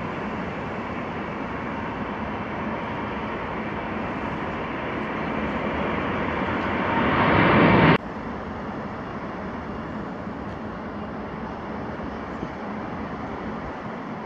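Boeing 787 Dreamliner's jet engines at take-off thrust, a steady rush that builds as the climbing airliner passes close and cuts off abruptly about 8 seconds in. After that comes a quieter, steady jet rumble.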